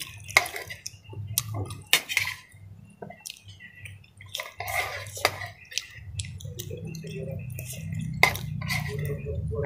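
Metal spoon and fork clinking and scraping against a ceramic bowl of noodle soup with meatballs, in sharp irregular clinks scattered through, a cluster of them about halfway.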